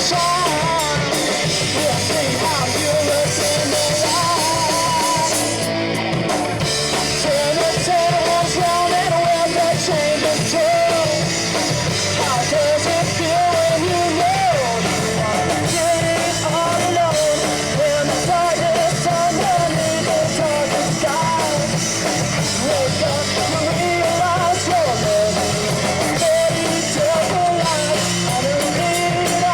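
Live rock band playing a punk-leaning rock song, a singer's voice carrying a wavering melody over electric guitar and drums at a steady, loud level.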